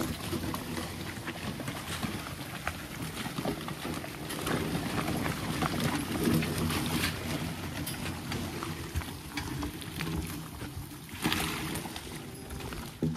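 A team of Belgian draft horses skidding a log: a continuous rattling, scraping rumble of the hitch and log moving over the forest floor, with a louder clatter about eleven seconds in.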